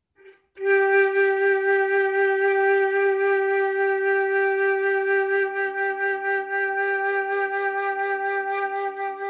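Flute holding one long, steady G, about nine seconds, as a long-tone exercise, after a brief first blow that stops at once.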